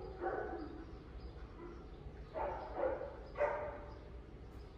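A dog barking in a few short bursts, one near the start and three more close together past the middle.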